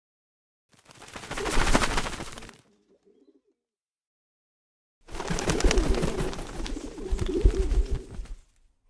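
Pigeon wings flapping in two bouts of rapid wingbeats: a short flurry about a second in, then a longer one of about three and a half seconds starting halfway through. A brief low pigeon coo follows the first bout.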